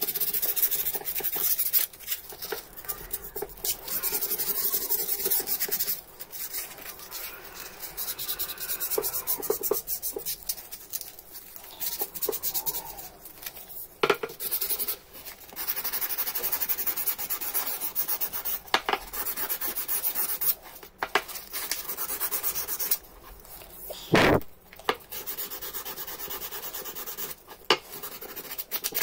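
Abrasive pad rubbing back and forth on a hammer's wooden handle, in spells with short pauses. A single knock comes about two-thirds of the way in.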